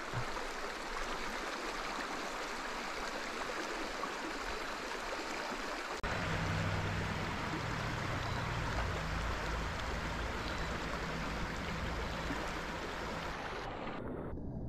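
Stream water running steadily in a low, clear trout stream. About six seconds in, a low rumble joins it.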